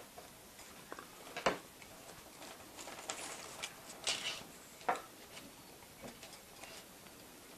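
Light clicks and ticks with soft crinkling as an SMD3528 LED strip is wound by hand around the ornament's post. The sharpest click comes about a second and a half in, with a brief crinkly rustle around three to four seconds in.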